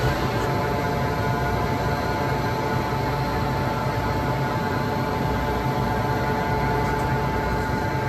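HAAS EC1600 horizontal machining center running, a steady machine hum with a held high whine.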